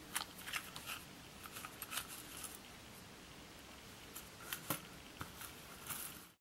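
Steel dip-pen nibs clinking and sliding against each other inside a cardboard tube case as it is handled and tipped: a faint scatter of small sharp clicks in several clusters.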